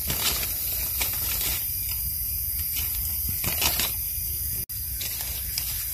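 Dry leaf litter rustling and crackling in short bursts as a hand pushes through leaves on the forest floor, over a steady high hiss and a low rumble.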